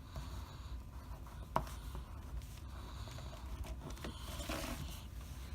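Faint scratching of a tiny red pencil writing, the pencil that comes with a Kinder Joy frog toy, with a single sharp click about a second and a half in.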